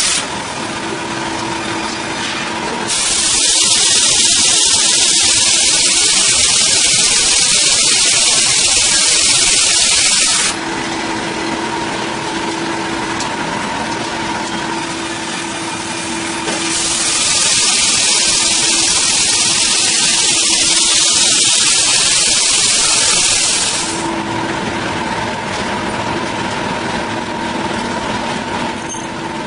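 Sawmill machinery running with a steady hum, twice overlaid by a loud hiss lasting about seven seconds each, the first starting about three seconds in and the second past the halfway point.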